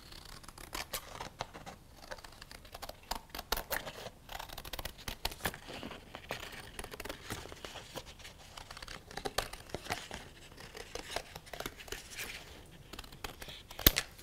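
Scissors cutting through a sheet of painted paper: a continual run of short, crisp snips with paper rustling as the sheet is turned, and one louder snap near the end.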